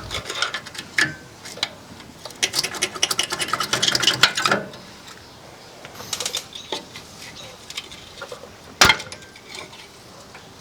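Flathead screwdriver prying and scraping a Ford F150 rear brake caliper off its rotor: a dense run of metal clicks and scrapes, then sparser clicks, and one sharp metal clank about nine seconds in.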